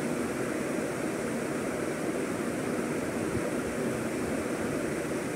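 Steady, even hiss with no distinct scrapes or clatter.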